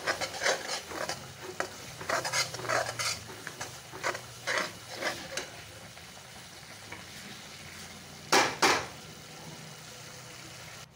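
Steel spoon stirring and scraping a thick onion-tomato masala in a metal kadhai while it sizzles over the heat. There is a quick run of scraping strokes for the first half, then only the soft sizzle, then two louder scrapes about three-quarters of the way through.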